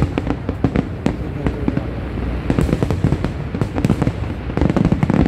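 Fireworks display: a dense, irregular run of bangs and crackles over a continuous low rumble, growing thicker and louder near the end.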